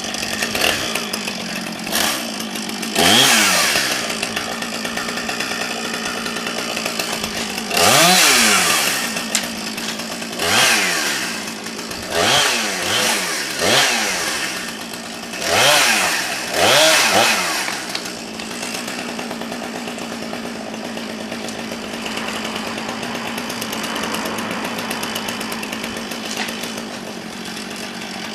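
Two-stroke chainsaw idling, revved up and back down in about seven short bursts over the first two-thirds, then left idling steadily.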